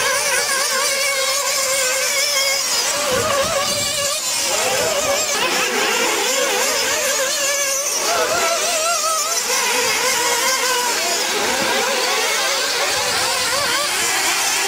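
Several nitro-powered 1/8-scale RC buggies racing together, their small two-stroke glow engines making a high buzzing whine whose pitches keep rising and falling as they throttle up and lift off around the track.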